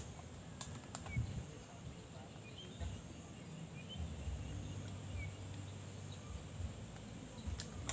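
Outdoor ambience: a steady high-pitched insect buzz with scattered short bird chirps over a low rumble, and a few faint clicks near the start and near the end.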